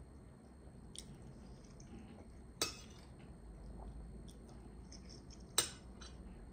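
Metal spoon clinking sharply against dishes twice, about three seconds apart, with soft chewing between the clinks.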